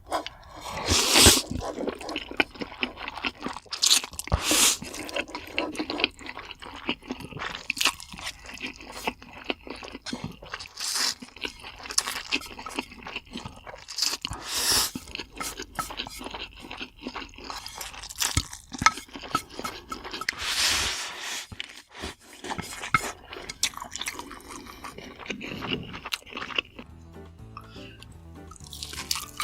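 Close-miked eating sounds from a mukbang: kimchi stir-fried noodles and fried egg being chewed, with irregular crunches and wet smacks throughout.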